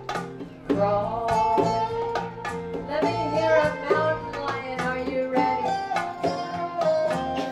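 Live band music: a guitar picking a melody over hand drums.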